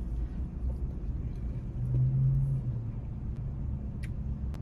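Steady low vehicle rumble with a brief low hum about two seconds in and a couple of faint clicks near the end.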